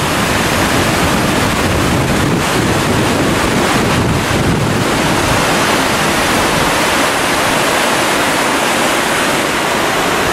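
Glacial meltwater river rushing over rocks and gravel in a steady, loud wash of water, with wind buffeting the microphone, most in the first half.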